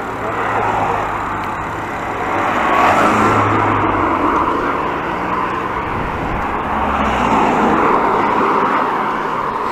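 Road traffic: cars passing on the road alongside the bike path, a steady noise that swells about three seconds in and again near eight seconds.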